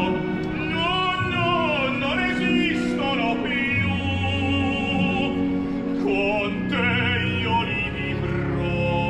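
Background music: an operatic singing voice with wide vibrato over steady instrumental accompaniment.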